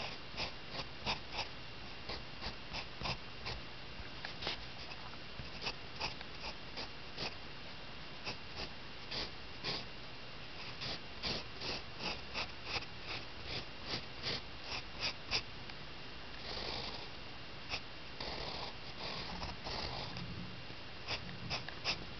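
Pencil drawing on lined paper in a run of short scratchy strokes, with a few longer strokes in the second half.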